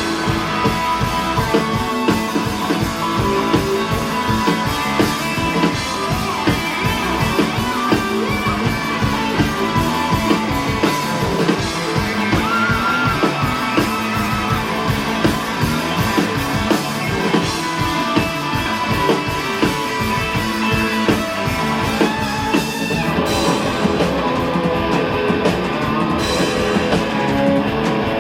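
Rock band playing live: guitars over a steady drum-kit beat.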